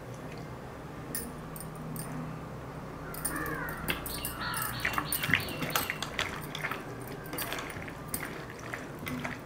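Wet squelching and sticky clicks of a hand working chicken pieces through a thick yoghurt marinade in a pan, with bangles clinking on the wrist; the mixing grows busier about three seconds in.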